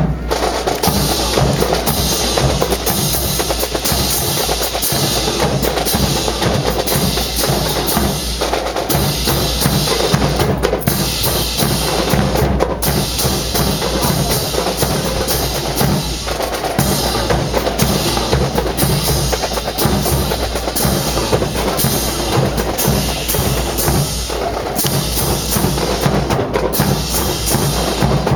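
Marching drum corps playing a continuous drum cadence, snare drums with rolls over bass drum beats.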